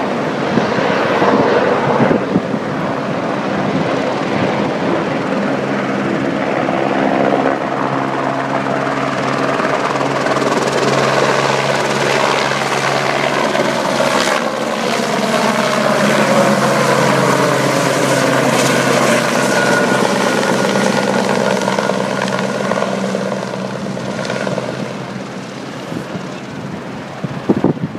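Helicopter flying overhead and passing by, its engine and rotor pitch sliding down as it goes past, then fading slightly near the end.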